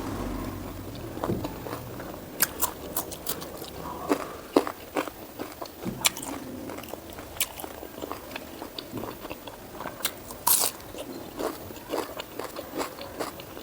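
Close-miked chewing of a mouthful of pork fat and rice, with crunches and sharp wet mouth clicks at an uneven pace.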